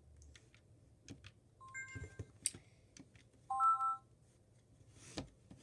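Electronic beeps from a voice-password toy being set: a short run of stepped beeps about two seconds in and a brief chord of tones about three and a half seconds in, with light button clicks between them.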